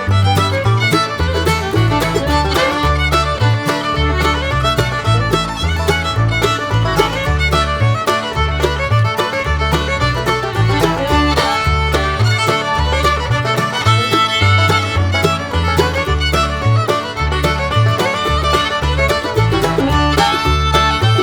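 Background music: an instrumental country-style tune led by fiddle over a steady, repeating bass line.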